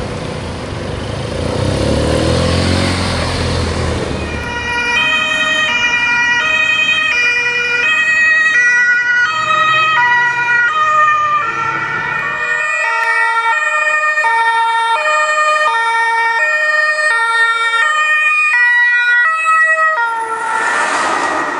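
German police two-tone sirens, the pitch stepping between high and low about every half second, with more than one siren overlapping at times. This follows a vehicle passing close with a rumbling engine in the first few seconds, and traffic noise comes back near the end.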